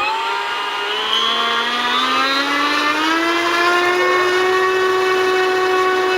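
Electric motor and propeller of an RC Cessna Skymaster 336 model running up on the ground. Its whine rises in pitch over the first few seconds, then holds steady at high throttle.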